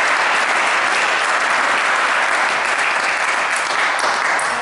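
Small crowd of spectators applauding steadily.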